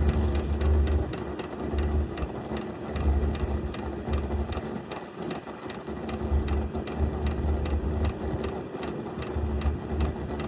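Vevor diesel heater running: the steady hum of its blower motor, with a light mechanical ticking typical of its fuel pump, and low rumbles that come and go.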